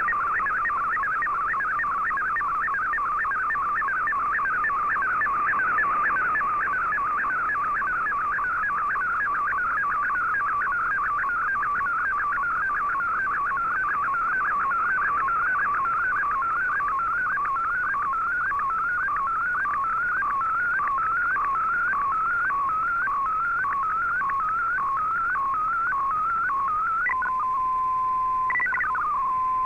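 Shortwave receiver audio of a digital-mode picture transmission (MFSK picture from Shortwave Radiogram): a warbling stream of tones sweeping in a repeating pattern, about two sweeps a second, as the image is sent. Near the end the picture finishes and the signal settles to a single steady tone, with a brief higher glide just before the end.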